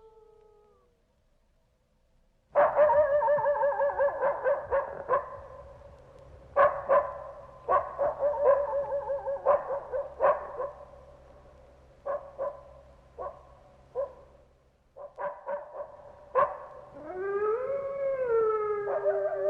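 Canine howling and yipping. About two and a half seconds in, a run of short, quavering yelps starts and goes on in irregular bursts, and near the end a long howl rises and then falls in pitch.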